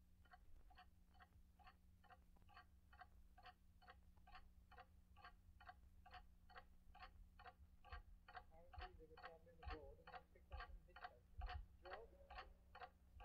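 Faint, even ticking, a little over two ticks a second, over low rumble and a steady hum from vinyl playback. Some faint murmuring sound joins in during the last few seconds.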